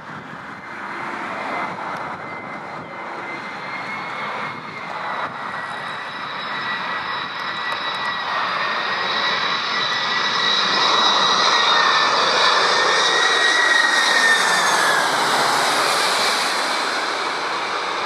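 Heavy jet airliner's engines on landing approach: a rushing noise with a high steady whine that grows louder, peaks about fourteen seconds in, and drops slightly in pitch as the aircraft passes.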